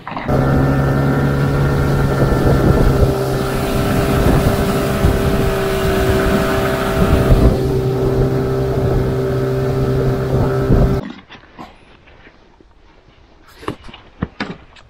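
Boat outboard motor running at a steady speed under water and wind noise, cutting off suddenly about eleven seconds in. Then it is quiet, with a few light knocks.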